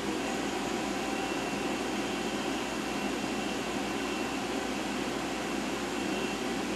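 Steady whirring hiss of a Fadal vertical machining center as its table traverses slowly along the Y axis. A faint high whine from the axis drive comes in about a second in, fades out past the middle and returns briefly near the end.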